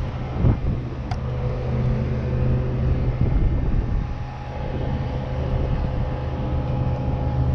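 A distant engine or motor running steadily, heard as an even low rumble with a faint hum that sets in about two seconds in.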